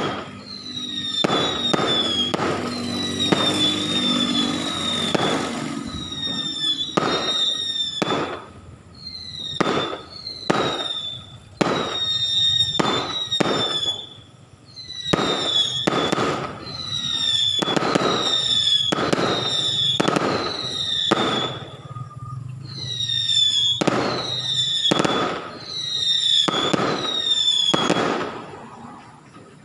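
Fireworks going off all around: about thirty sharp bangs, roughly one a second, with short falling whistles in between.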